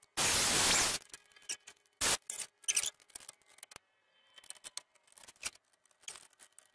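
A cordless drill runs on a screw in wood for about a second, then gives a shorter burst about two seconds in. After that come scattered light knocks and scrapes as the wooden seat pieces are handled.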